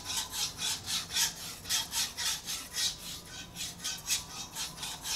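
Shun Premier chef's knife blade stroked back and forth on a fine 6000-grit whetstone: a steady run of soft scraping strokes, about three or four a second, not very loud.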